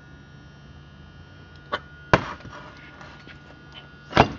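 Two sharp knocks about two seconds apart, with a small click just before the first, over a steady low electrical hum.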